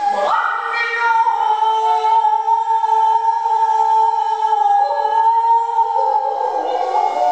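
A woman's solo voice chanting Japanese shigin (recited poetry): one long held note with a slight wavering, moving lower near the end.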